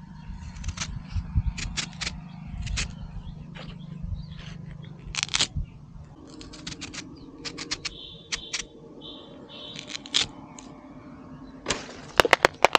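A sickle blade cutting and scraping a green banana leaf stalk: irregular sharp clicks and crunches as the blade bites into the fibrous stalk.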